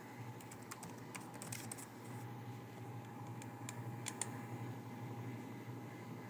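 Faint computer keyboard typing: scattered keystrokes through the first two seconds, then a few more clicks around three and a half to four seconds in, over a low steady hum.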